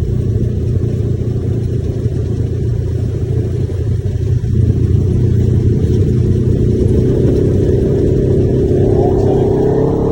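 Side-by-side UTV engine running as the machine drives along. It gets louder about halfway through as it picks up speed, and its pitch climbs a little near the end.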